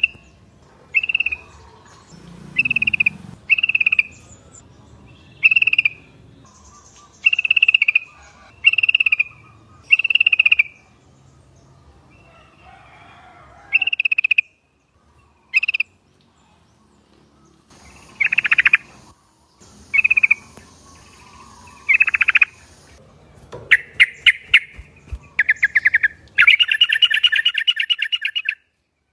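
Yellow-vented bulbuls (trucukan) calling: a run of short, bright repeated notes about a second apart, then after a pause a fast, rattling chatter of quick notes near the end.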